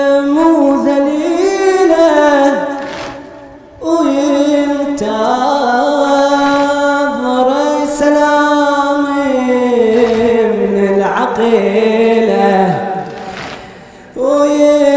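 A male reciter sings a Shia mourning lament (latmiyya) into a microphone in two long, drawn-out melodic phrases, the second lasting about nine seconds. Each phrase fades away at its end.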